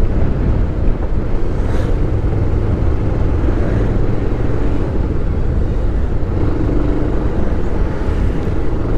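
Wind rushing over the camera microphone and the engine of a motorcycle being ridden through traffic, a loud, steady low-pitched noise.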